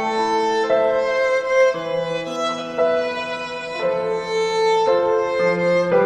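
Slow instrumental background music, with sustained notes and chords that change about once a second.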